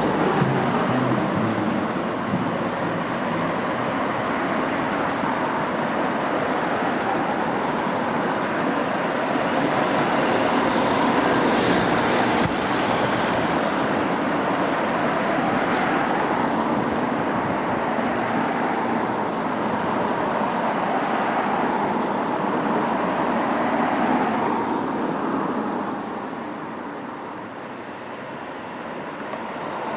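A passenger train running through the station with a steady rumble and rail noise, fading away about 26 seconds in before the next train starts to come in.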